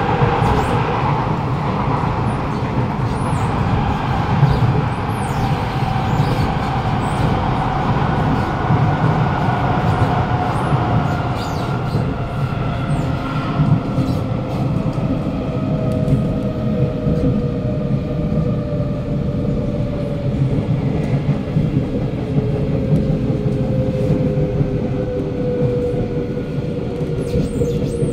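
Interior running noise of a Kawasaki Nippon Sharyo C751B metro car: a steady rumble of wheels and running gear under a motor whine whose several tones slowly fall in pitch, as the train eases its speed.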